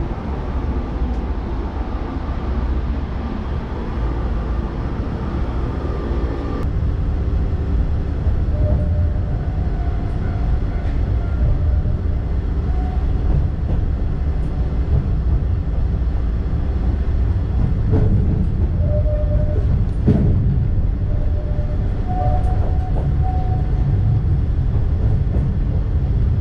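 Narrow-gauge electric commuter train running along the track, heard from inside the car: a steady low rumble of wheels and running gear, with two sharp knocks about two-thirds of the way through.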